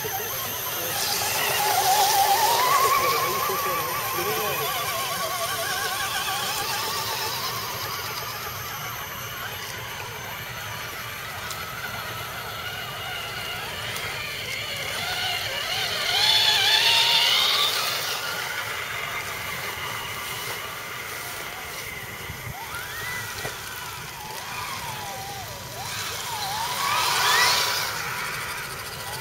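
Whine of scale RC crawler trucks' electric motors and geared drivetrains, the pitch wavering up and down with the throttle. It swells three times as trucks pass close by, and near the end rises sharply in pitch.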